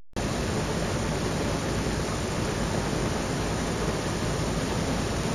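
Push lawn mower running with a loud, steady rushing noise.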